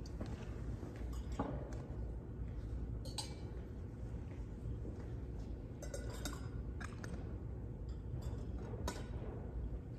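Metal altar vessels, a chalice and ciborium, clinking as they are handled and set down during the purification of the vessels after communion: a few scattered clinks, several close together about six seconds in, over a steady low hum.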